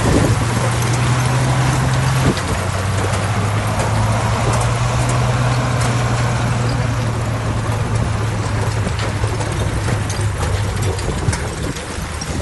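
Diesel engine of heavy earthmoving equipment running steadily, its pitch dropping slightly about two seconds in as the engine eases off.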